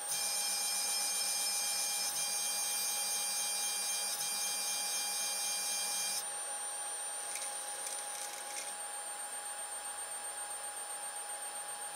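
Z-axis stepper motor of a Protomaker Sprint 3D printer whining steadily as it drives the gantry and print head upward, stopping abruptly about six seconds in. A fainter steady whistle from an energised stepper continues after it.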